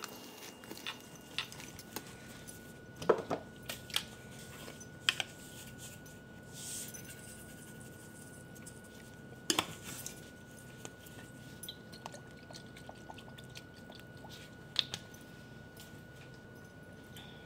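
Plastic-gloved hand squishing and kneading a thick, sticky oat-and-bean sausage mixture in a stainless steel bowl, with a few sharp knocks of the hand and bowl against metal.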